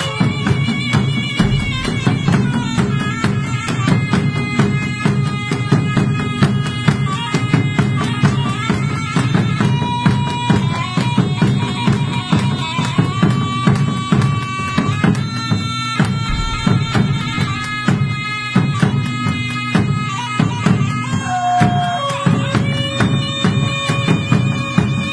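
Malay nobat court ensemble playing: yellow-wrapped gendang nobat drums beat a dense, steady rhythm under an unbroken reedy wind melody of held notes that step up and down in pitch.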